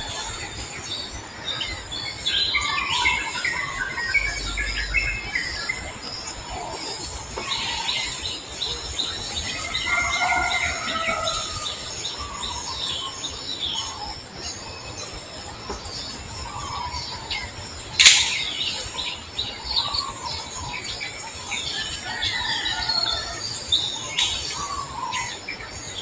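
Short, high squeaks and chirps from animals, coming in small clusters throughout. A single sharp click about eighteen seconds in is the loudest sound.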